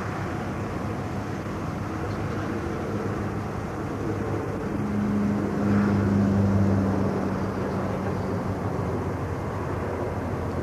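Fokker F-27 twin-turboprop airliner taxiing at a distance, its engines making a steady drone. The drone swells about halfway through, then settles back.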